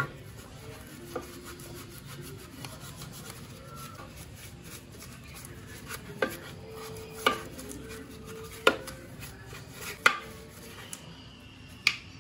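Hand brush scrubbing the inside of a degreaser-soaked metal engine valve cover, the bristles rasping steadily, with several sharp knocks as the brush strikes the cover.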